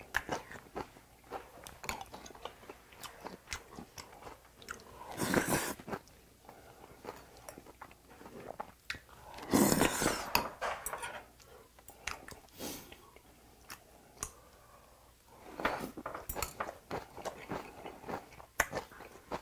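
Close-up eating sounds: a person slurping spoonfuls of red bean porridge with rice balls and chewing with wet mouth clicks and some crunching. There are longer slurps about 5 and 10 seconds in, and denser chewing near the end.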